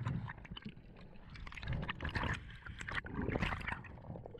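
Underwater bubbling and gurgling of rising air bubbles and water moving past the camera's microphone, with many small irregular clicks and knocks, heard muffled underwater.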